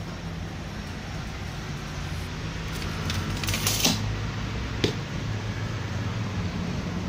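Clear plastic sheeting being handled and cut on a table: a brief crinkling rustle about three and a half seconds in and a single sharp click about a second later, over a steady low background hum.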